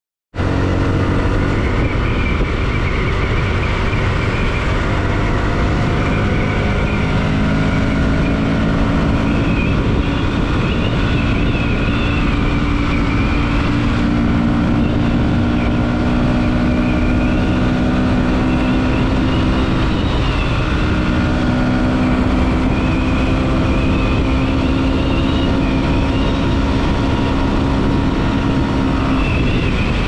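Bajaj Pulsar NS160's single-cylinder four-stroke engine running under way at road speed, about 70–90 km/h. Its note holds steady for stretches and shifts in pitch a few times as the throttle and gears change.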